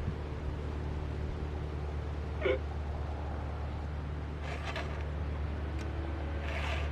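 Two short rasping strokes of a steel file across a chainsaw chain's teeth, the first about four and a half seconds in and the second near the end, over a steady low hum.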